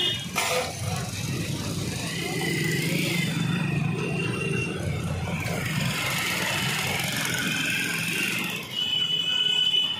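Street traffic of motorcycles running at low speed close by, with a high-pitched squeal near the end.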